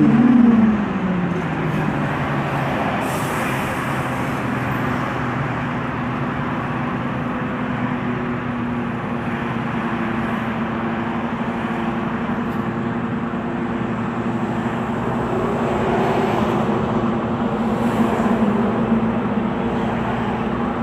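MAN Lion's City city bus under way, its MAN E2876 natural-gas straight-six engine dropping in pitch right at the start, then running with a steady drone over road noise.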